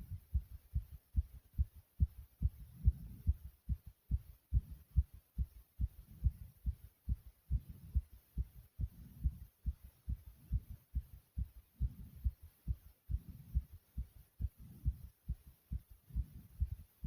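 Fast, strong human heartbeat: quick, even lub-dub thumps. A low breathing rush swells in and out every few seconds.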